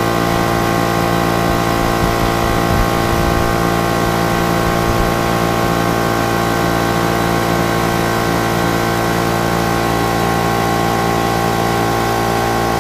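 Brand-new oil-lubricated Craftsman air compressor running steadily on its first fill of the tank, its pump and motor giving a constant pitched drone. It stops suddenly at the very end as the tank reaches shut-off pressure.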